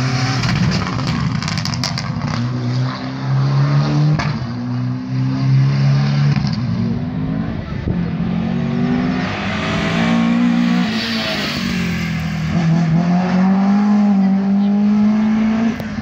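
Rally car engine under hard acceleration, the revs climbing and dropping again and again as it shifts through the gears.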